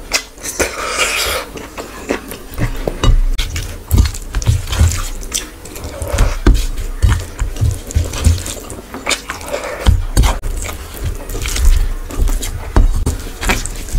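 Close-miked wet eating sounds: fingers squishing and mixing gravy-soaked rice on a steel plate, and mouthfuls chewed with wet smacking and lip sounds, in irregular clicks and squelches.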